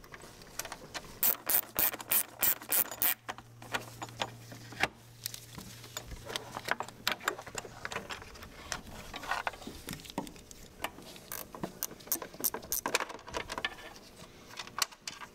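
Hand ratchet wrench clicking in two short runs of quick, evenly spaced clicks, about four a second, with light clatter of hoses and tools being handled between them.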